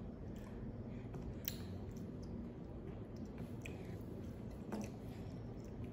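Faint wet clicks and smacks of a seven-month-old baby chewing and mouthing tomato meat sauce, with one sharper click about one and a half seconds in.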